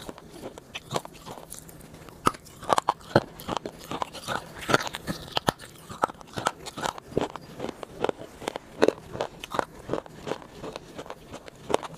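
A person biting into and chewing a hard, crunchy brown egg-shaped snack close to a clip-on microphone: a dense run of sharp, crackling crunches, heaviest a few seconds in.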